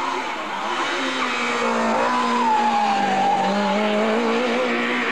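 Small Audi 50 / VW Polo race car running hard through a bend. The engine note sags about halfway through and climbs again as it accelerates out.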